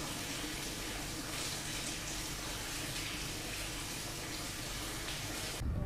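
Tap water running over oranges in a plastic basket as they are rinsed by hand: a steady splashing hiss that cuts off suddenly near the end.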